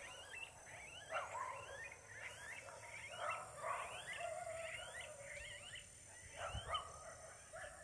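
Anus calling from the thicket: a run of short, rising, whiny calls that overlap and repeat, starting about a second in. They are fairly faint.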